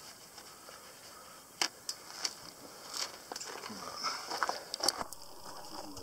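Paper towel being handled, torn from the roll and wrapped around a sweet potato: soft rustling with a scatter of short, sharp crackles from about a second and a half in.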